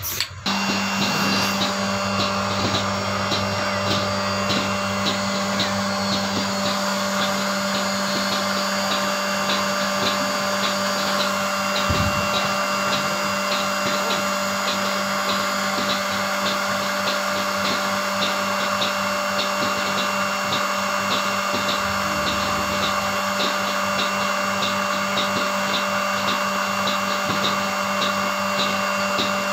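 Milking machine running: a steady vacuum-pump hum with a regular light ticking on top, typical of a milking pulsator.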